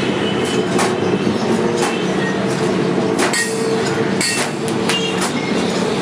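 Electric spot welder humming steadily, with irregular sharp crackles and snaps as the electrode welds the steel wire crossings of a bird-cage grid panel.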